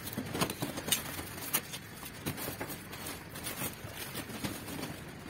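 Plastic packing wrap and foam sheets rustling and crackling as they are pulled out of a cardboard box and handled, with many irregular short crinkles.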